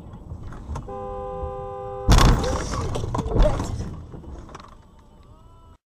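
A car horn sounds a steady tone for about a second, then a sudden loud bang breaks in, with clattering and a second loud hit, dying away over the next two seconds: a car collision.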